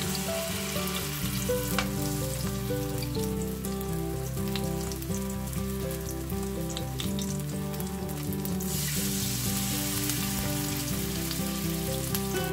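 Clam pancake batter frying in hot oil in a nonstick pan, a steady crackling sizzle that sounds like rain, growing louder about two-thirds of the way through as more batter goes in. Background music plays underneath.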